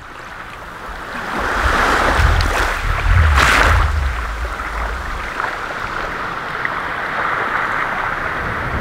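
Small waves lapping on a sandy shore in a steady wash, with a spell of low wind rumble on the microphone about two to four seconds in.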